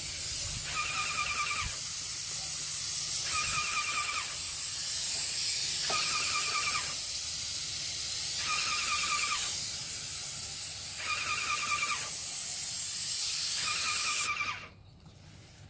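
Airless paint sprayer's gun hissing steadily as it sprays paint, stopping abruptly near the end. A warbling high tone sounds for about a second every two and a half seconds throughout.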